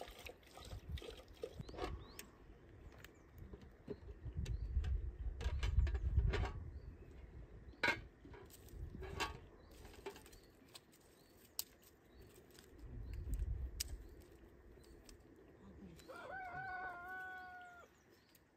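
A rooster crows once near the end, a single pitched call lasting about a second and a half. Before it come scattered sharp knocks and clicks and stretches of low rumbling.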